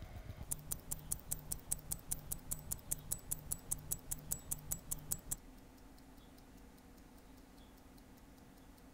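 Poljot 2409 hand-wound watch movement ticking at 18,000 beats per hour, five sharp ticks a second from its balance and escapement, running again after a clean and fresh oil. The ticking stops suddenly a little past five seconds in, leaving a faint hum.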